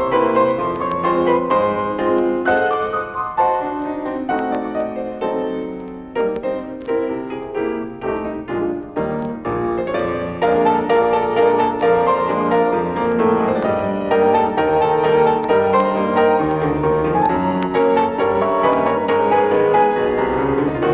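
Piano music accompanying a silent film, with many quickly struck notes; it grows fuller and louder about ten seconds in.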